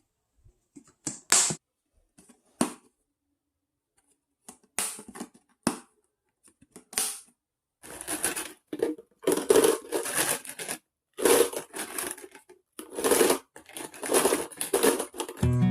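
Crinkly plastic crackling and rustling as it is handled and crushed, in short sharp bursts: a few scattered at first, then a dense run of them through the second half.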